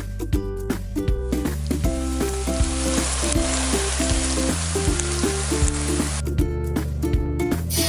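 Food sizzling as it fries in a pan, a steady hiss that comes in about a second in and cuts off abruptly about six seconds in. It plays over light, bouncy background music with plucked notes and a steady beat.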